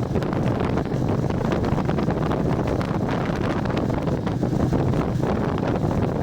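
Wind buffeting the microphone over a Royal Enfield Meteor 350's single-cylinder engine running steadily on the move, with scattered short ticks.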